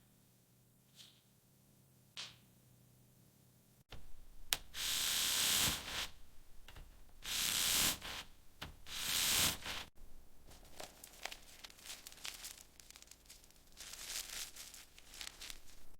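Hand and tool work on a fiberglass boat hull: three long hissing bursts, then a run of quick scratchy scraping strokes, after a few seconds of quiet with two faint clicks.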